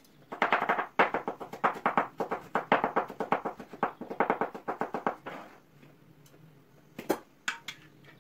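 Kitchen knife chopping garlic on a wooden cutting board: a fast, even run of knocks, about five a second, stopping about five and a half seconds in. Then a single knock and a few light clinks near the end.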